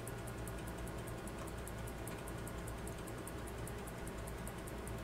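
Quiet, steady background: a low hum with faint, fast, evenly spaced high ticks. No distinct sound of the mainspring being let down stands out.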